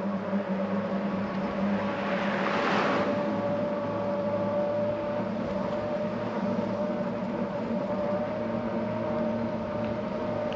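Road traffic: a steady engine hum throughout, with a car passing about two to three seconds in.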